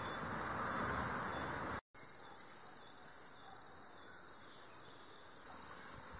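Rural outdoor ambience with a steady high-pitched insect drone and a short bird chirp about four seconds in. A louder rushing noise in the first two seconds cuts off abruptly at an edit.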